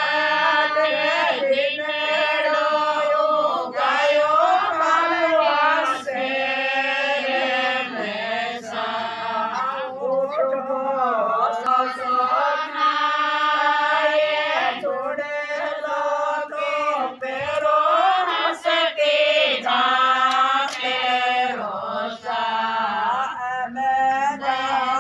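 Singing in long phrases with wavering held notes, going on throughout.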